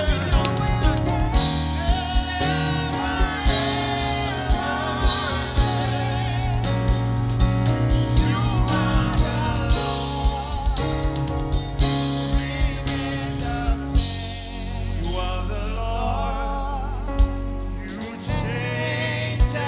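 Gospel music with singing, over a steady drum beat and sustained keyboard or bass notes. The drums drop out briefly for a few seconds in the second half.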